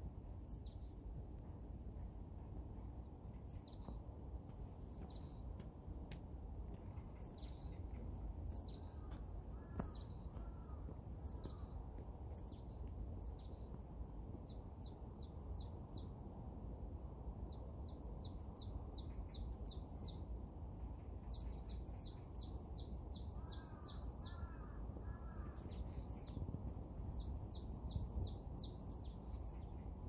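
Songbirds singing: a series of high, downward-slurred whistles about one a second, giving way about halfway through to quick runs of rapid high notes. Twice, about a third of the way in and again near the end, a run of three lower calls. A steady low background rumble runs underneath.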